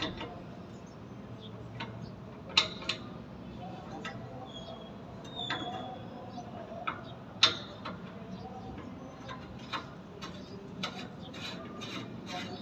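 Scattered clicks and knocks of hand tools and fittings being handled during a water tank repair. Two sharp knocks stand out, about two and a half and seven and a half seconds in, and the clicks come faster near the end.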